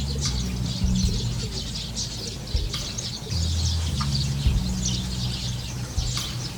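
A flock of small birds chirping constantly, many short calls overlapping, over a low rumble of wind on the microphone.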